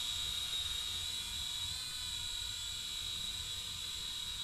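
Eachine E58 micro quadcopter in flight: its four 0720 coreless motors and small propellers make a steady high-pitched whine.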